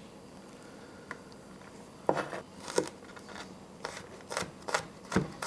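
Chef's knife mincing garlic cloves on a wooden cutting board: a run of sharp knocks of the blade on the board, starting about two seconds in and coming at uneven intervals.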